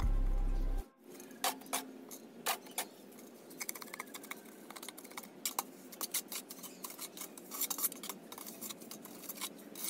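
Background music plays for the first second and then stops. After that, cement mortar is packed by hand into the bottom of a stainless-steel cylinder and worked with a trowel: irregular scraping with sharp clicks and clinks against the steel.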